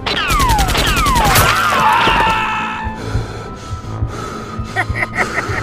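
Edited-in game-style sound effects over a music bed: a sudden burst of rapid-fire clicks with whistling tones gliding downward, then a quieter low drone with a few quick high beeps near the end.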